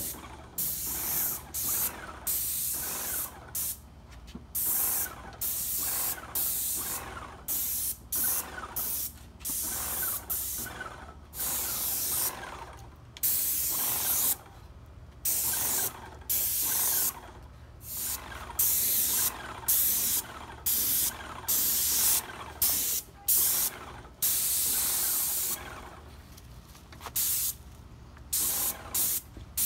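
Graco Magnum X5 airless paint sprayer spraying stain. It comes as a long series of sharp hissing bursts, each about half a second to two seconds, as the gun's trigger is pulled and released, over a steady low hum.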